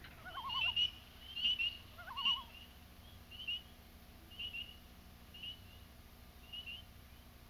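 Faint night-time animal calls: a short high chirp repeats about once a second. A lower, wavering warbled whistle sounds near the start and again about two seconds in.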